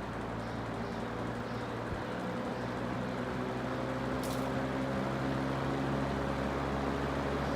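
Vintage GE 20-inch five-blade box fan running on medium, its motor hum and blade rush slowly growing louder as it comes up to speed.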